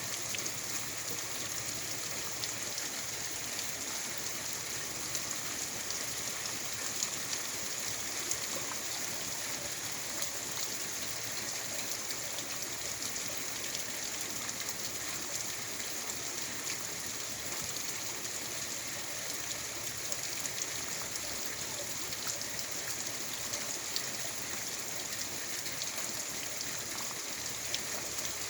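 Steady rain falling, a constant hiss with many small drops pattering.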